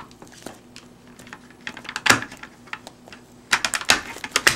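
Small hard plastic clicks and taps of an Arai helmet's shield side pod being handled and pressed onto its baseplate: one sharp click about two seconds in, then a quick run of clicks near the end.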